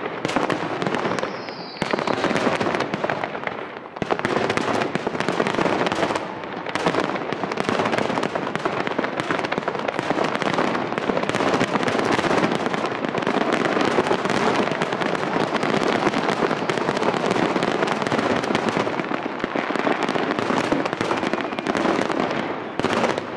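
Aerial fireworks going off in a dense, near-continuous barrage: many shells bursting at once with overlapping bangs and crackling. There is a short falling whistle about a second in.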